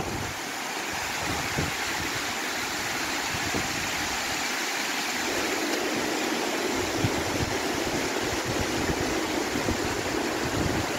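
Steady rush of running water, an even hiss that stays the same level throughout.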